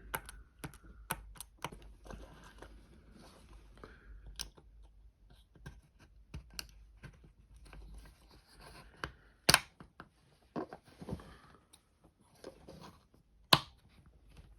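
Small plastic clicks and handling rattles of a John Deere skid steer parking-brake rocker switch being worked by hand, with two sharper clicks about two thirds in and near the end. The switch is clicking through its positions as it is supposed to after being reassembled.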